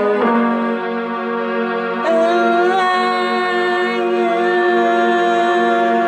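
Slow instrumental music of long, sustained chords. The chord changes just after the start, and a new held note enters about two seconds in.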